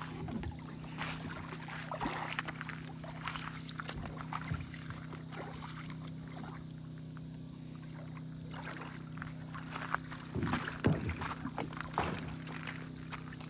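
Kayaks and paddles being handled at the water's edge: water splashing and sloshing with scattered knocks, in two bursts, the louder near the end. A steady low hum runs underneath.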